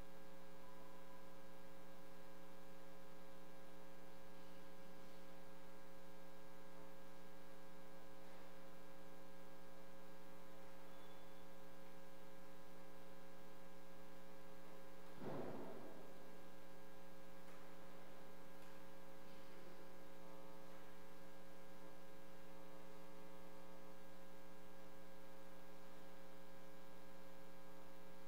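Steady electrical mains hum, a constant buzz made of several steady tones. A little past the middle, a brief sound rises over it for under a second.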